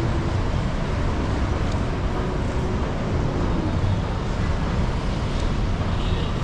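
Steady city street ambience: a continuous wash of traffic noise with a low rumble, no single vehicle standing out.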